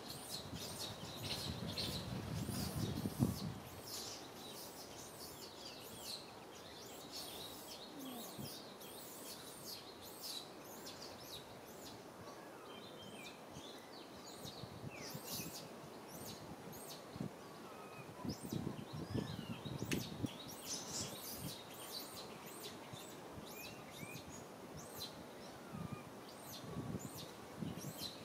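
Birds chirping in many short, high calls scattered throughout, over outdoor background noise, with bursts of low rustling at the start and a few more times later.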